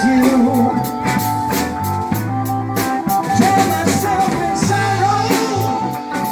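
Live band playing a rock-soul groove: drum kit keeping a steady beat under a bass line and guitar, with one note held high above them.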